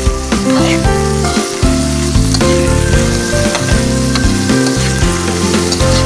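Mixed vegetables sizzling in hot oil in a pan as they are stir-fried and turned with a spatula, a steady hiss under background music with held, stepping notes.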